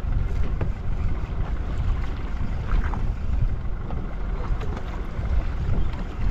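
Steady low rumble of wind and boat noise on a fishing boat at sea, with a few faint clicks.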